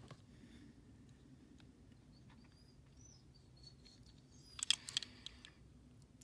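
Small die-cast toy cars handled in the fingers: faint scattered clicks, then a short cluster of clicks and taps about four and a half seconds in as the cars are turned over. A low steady room hum and a few faint high chirps sit underneath.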